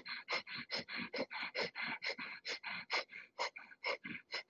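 Kundalini yoga breath of fire: strong, rapid, rhythmic breathing through the nose, about four sharp pumping exhalations a second.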